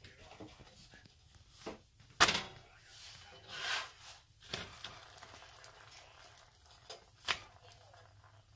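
Flour tortillas being lifted and turned by hand on a round stovetop griddle: a few sharp knocks and taps against the pan, the loudest a little over two seconds in, and a short papery rustle of the tortillas a bit over three and a half seconds in.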